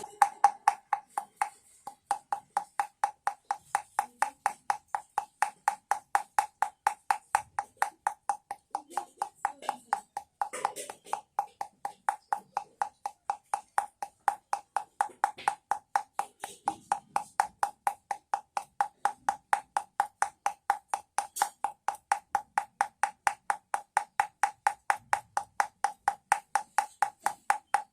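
Homemade baby rattle, a container with something inside, shaken in a steady rhythm: a hollow, ringing knock about three times a second, each at the same pitch.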